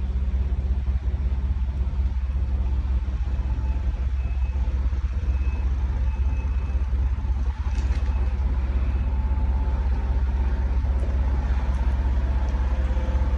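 Steady low rumble of a motor vehicle running, with a faint background haze of traffic noise.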